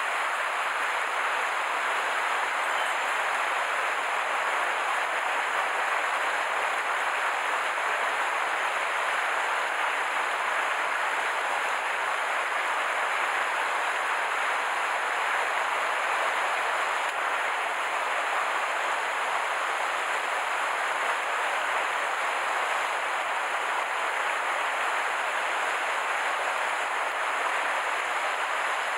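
Steady rush of a small, rocky mountain stream's running water.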